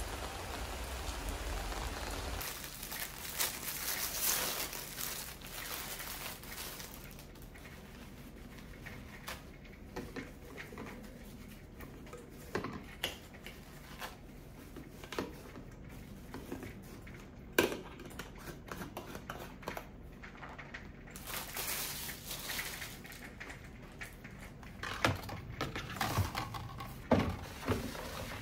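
Kitchen handling sounds: foil packets crinkling and small items knocking against a glass jar, with scattered sharp clicks and knocks. A steady hiss fills the first few seconds.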